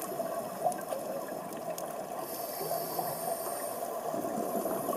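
Underwater reef ambience heard through a submerged camera: a steady watery rush with a few faint clicks, and a faint high hiss that comes in about two seconds in and again near the end.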